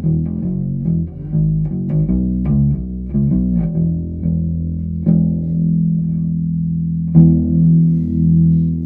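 Ibanez SRH505F five-string fretless acoustic-electric bass played through its piezo pickup with the tone all the way up: a quick run of plucked notes, then slower single notes left to ring, the loudest plucked about seven seconds in.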